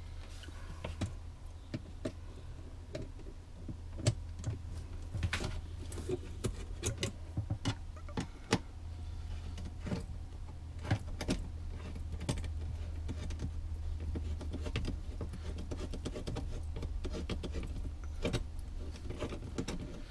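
Screwdriver loosening metal hose clamps on the hoses of a Lectrasan marine toilet treatment unit: irregular small metallic clicks, scrapes and knocks, over a steady low hum.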